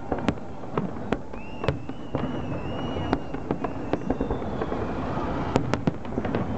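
Aerial fireworks shells bursting in a large display: a string of sharp bangs at uneven intervals, with a high wavering whistle from about a second in to about four seconds.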